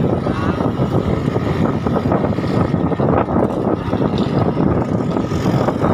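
Wind buffeting the microphone over the engine and road noise of a moving vehicle: a loud, steady rumble.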